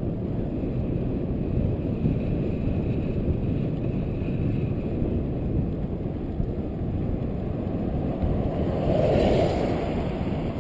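Wind buffeting the microphone of a bicycle-mounted camera while riding, a steady low rumble. A brief louder rush about nine seconds in.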